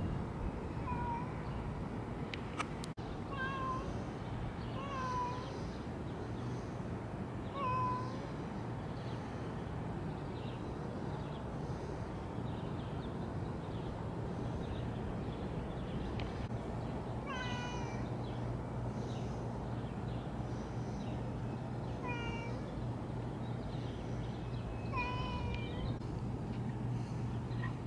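Longhaired domestic cat meowing: about seven short meows, each dipping slightly in pitch, spaced irregularly with a long gap in the middle, over a steady low background hum.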